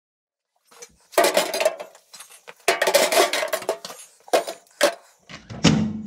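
Hard metal objects clattering and clinking together with a ringing tone: two longer clatters, then two short clinks and a last clatter near the end.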